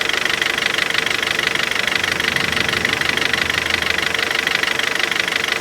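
Kia Cerato engine idling with a rapid, steady light ticking knock. The owner says the knock all but disappears once the engine is fully warm; mechanics have blamed a piston, out-of-adjustment valves or a pulley.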